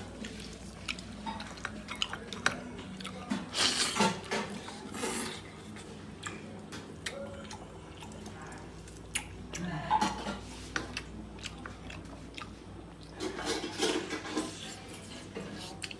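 A person chewing and biting food at close range, with scattered short clicks and crunches that bunch up in a few spells.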